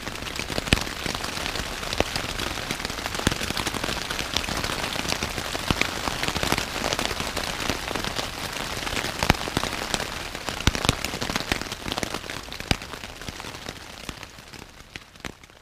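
Rain falling on the fabric of a Luxe Hex Peak pyramid tent, heard from inside: a steady patter of many separate drop hits. It fades out near the end.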